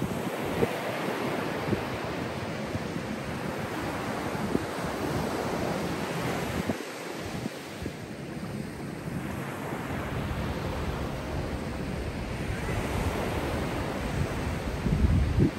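Small waves breaking and washing up on a sandy beach, a steady rushing surf that swells and eases, with wind buffeting the microphone and a stronger low gust near the end.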